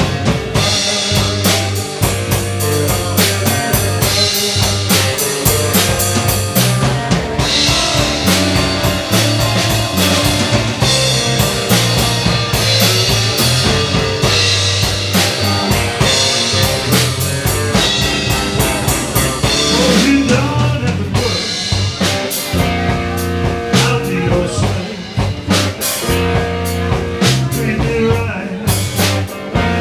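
A live blues band plays a blues number, with a drum kit and electric guitars.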